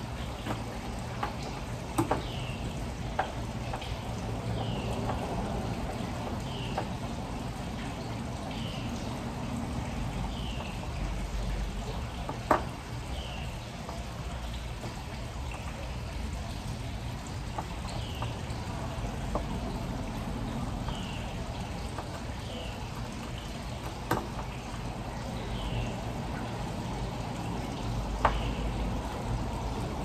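Steady water-like hiss with a bird giving a short falling chirp every second or two, and a few sharp clicks of hand tools being worked on the door frame.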